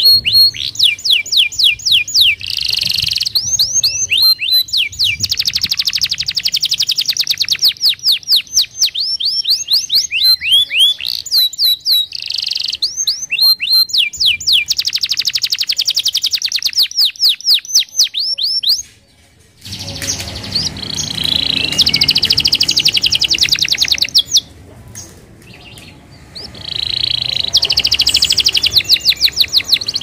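Domestic canary singing: loud, rapid trills of quickly repeated notes strung into long rolls. The song breaks off briefly about two-thirds through, dips again a little later, then resumes.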